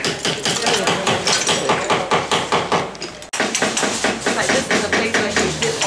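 Rapid repeated knocking and tapping of hand tools working on an old door with a metal grille, several blows a second, with voices in the background. The sound breaks off abruptly a little over halfway, then resumes.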